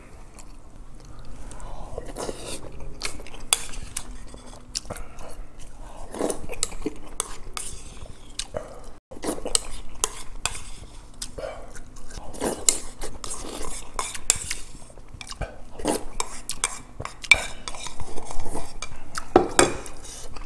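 Close-up eating sounds: chewing, with a wooden spoon and metal chopsticks clicking and scraping against ceramic bowls. There are many short clicks throughout.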